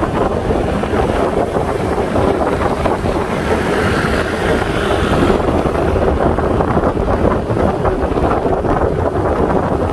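Loud wind buffeting the microphone of a moving motor scooter, with the scooter's engine and road noise running steadily underneath.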